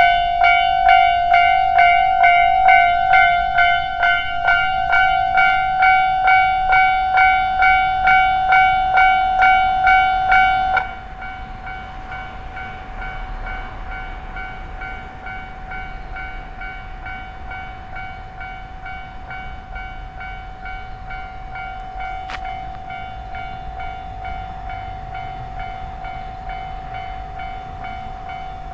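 Japanese level-crossing warning bell ringing in a steady electronic clang, about two strokes a second. About eleven seconds in it drops to a much lower volume and keeps ringing.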